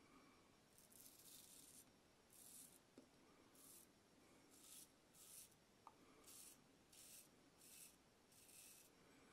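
A vintage The Artist straight razor scraping through lather and stubble on the face in short strokes, about nine faint rasping passes roughly one a second.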